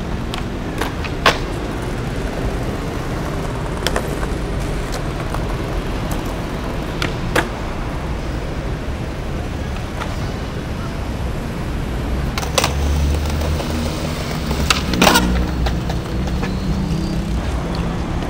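Steady city traffic rumble, heavier for a few seconds past the middle, with a handful of sharp, isolated clacks scattered through it.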